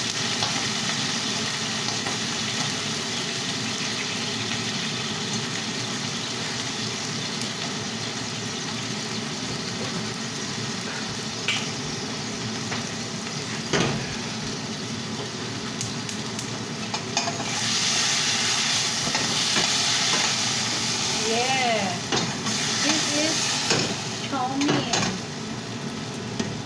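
Chow mein noodles frying in a stainless steel pan over a gas burner: a steady sizzle, with a single sharp knock about halfway through. The sizzle grows louder in the last third as the noodles are stirred.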